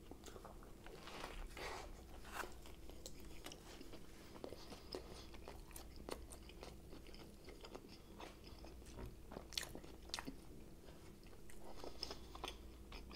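A person chewing a mouthful of chicken bacon club sub sandwich with the mouth closed: faint, scattered soft crunches and mouth clicks.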